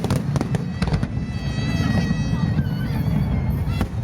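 Fireworks display going off: a rapid run of bangs and crackles over a continuous low rumble.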